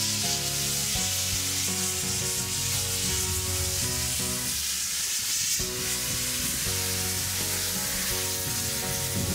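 Steam locomotive starting away with a steady hiss of steam blowing from its open cylinder drain cocks. A melody of background music plays over it, dropping out briefly about halfway through.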